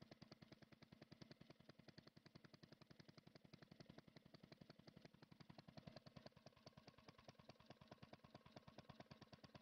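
Near silence, with a faint, rapid, even pulsing of about nine pulses a second.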